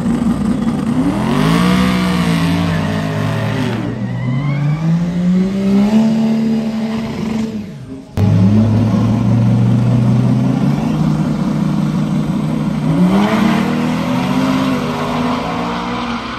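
Modified pickup truck engines revving hard during burnouts, the pitch sweeping up and falling back in long revs. About eight seconds in, the sound cuts to an engine holding a steady note, which then climbs again into another rev.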